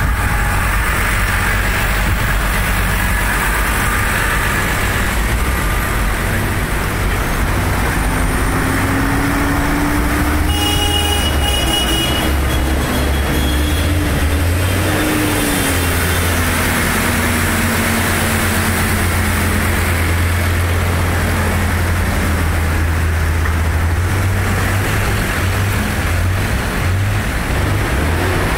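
Diesel engines of a convoy of large farm tractors running in slow street traffic: a steady, heavy low drone. Through the middle, one engine's pitch rises and then slowly falls. A brief high-pitched tone sounds about ten seconds in.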